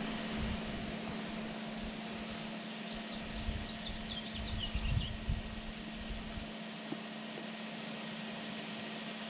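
Steady outdoor background hiss with a constant low hum under it, and a few faint high bird chirps about three to five seconds in.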